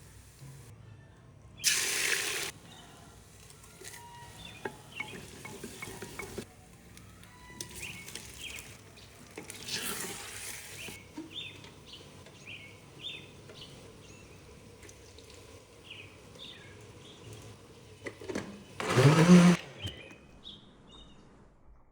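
Cooking noises: three short bursts of hissing, splashing sound, one about two seconds in, one near the middle and one near the end, the last with a rising tone. Small birds chirp throughout.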